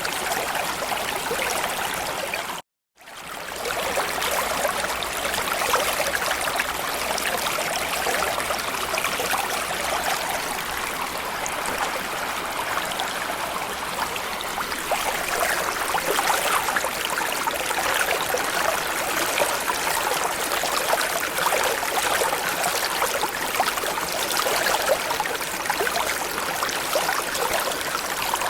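Small stream or creek flowing steadily, an even rushing, trickling water noise. About three seconds in it cuts out to silence for half a second, then fades back in.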